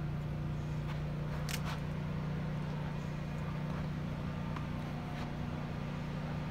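A steady low hum of a running motor, with a brief click about one and a half seconds in.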